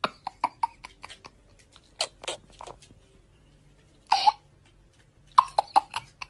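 A child's stifled giggles: short, breathy catches and snorts coming in quick clusters, with a stronger breathy burst about four seconds in.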